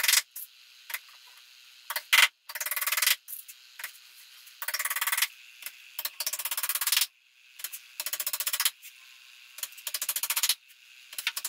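Hammer worked against the edge of a pine board: repeated bursts of rapid clattering ticks, each under a second long, with one sharper single knock about two seconds in.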